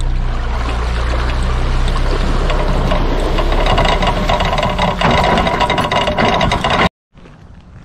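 Boat underway with water rushing along the hull and a low engine hum. The hum fades a few seconds in as the rushing water grows louder, and the sound cuts off suddenly near the end.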